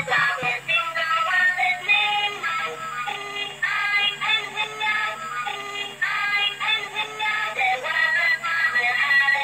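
Battery-powered light-up toy train playing its built-in electronic song, a synthesized voice singing a tune over a steady low hum. A few handling clicks sound right at the start.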